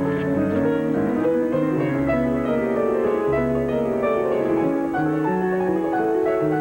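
Slow classical music led by piano, with deep held bass notes changing about once a second.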